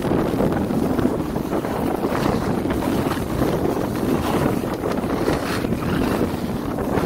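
Wind rushing and buffeting over the microphone of a skier moving downhill, mixed with skis hissing and scraping over packed, groomed snow.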